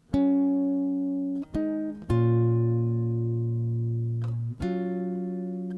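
Guitar playing an intro: four chords struck one at a time, each left to ring and fade slowly before the next.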